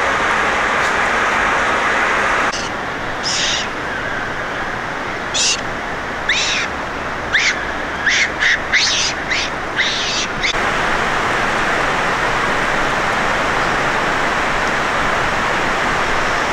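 Steady rushing water. Through the middle several seconds the water sound is lower, and a small bird gives a series of short, high chirps, each falling in pitch.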